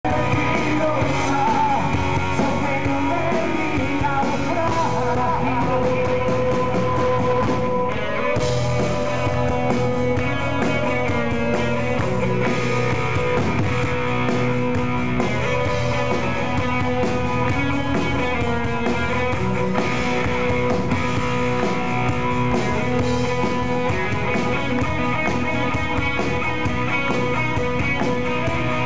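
Live rock band playing loud and steadily: a singer over electric guitars, bass and drums.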